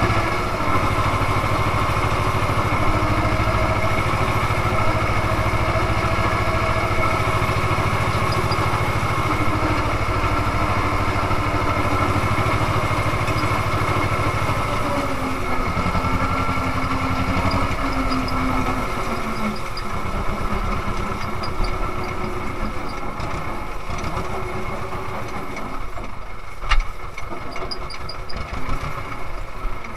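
Ursus C-330M tractor's two-cylinder diesel engine running steadily under way, heard from inside the cab. About twenty seconds in, the engine note drops and cab rattle comes more to the fore, with a sharp knock near the end.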